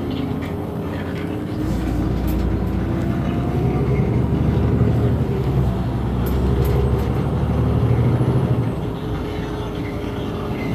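Iveco Crossway bus's diesel engine idling at a stop, a steady low rumble. It grows louder about two seconds in and eases off near the end.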